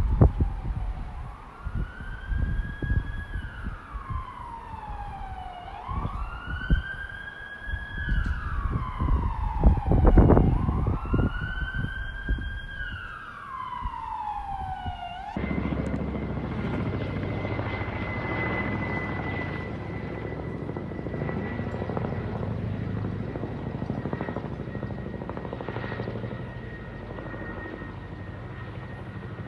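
An emergency-vehicle siren wails, slowly rising and falling about every four seconds, over heavy low buffeting that is loudest about ten seconds in. About halfway through it cuts to the steady rumble of a helicopter with a high, steady whine.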